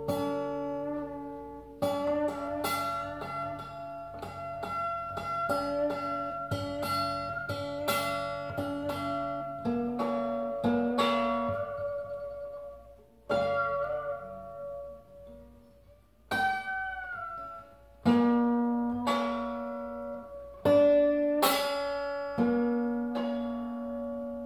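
Acoustic guitar with an Allen wrench wedged under the strings at the sixth fret as a makeshift bridge, plucked in a free improvisation: single ringing notes and small chords, each dying away. About two-thirds through, one note slides down in pitch.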